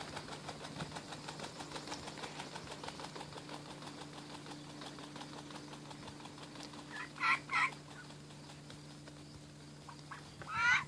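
Mallard ducks calling: a fast run of soft, repeated calls through the first half, then two loud quacks about seven seconds in, and a longer, louder call near the end.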